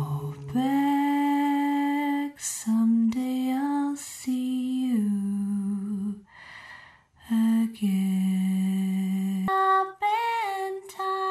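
A solo voice singing a slow, lullaby-like melody in long held notes, with short pauses between phrases.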